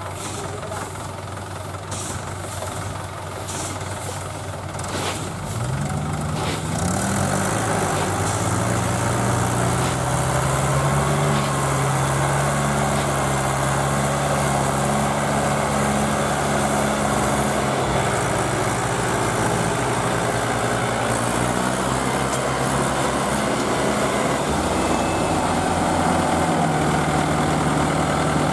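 Tractor diesel engines of a Mahindra 475 DI and a Kubota L4508, pulling together on a loaded trolley in soft paddy mud. The engine note starts low and idling, rises sharply about six seconds in and holds high under load. It dips and climbs again a couple of times near the end.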